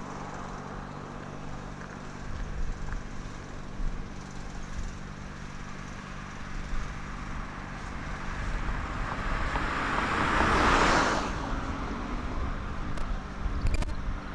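A car passing on the road, its noise swelling to a peak about eleven seconds in and then fading, over a steady low rumble of traffic. A few sharp clicks come near the end.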